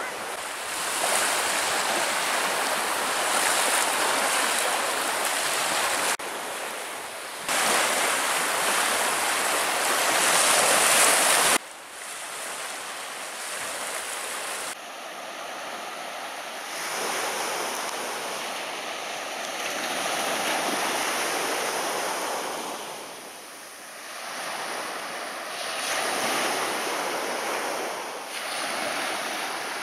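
Sea waves breaking and washing up on a sandy beach, with wind buffeting the microphone. The sound changes abruptly several times between louder and softer stretches.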